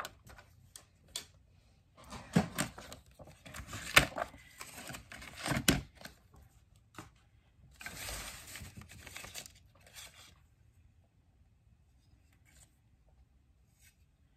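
Paper being cut and handled: rustling and tearing-like swishes with several sharp clicks and knocks, growing quiet about two-thirds of the way through.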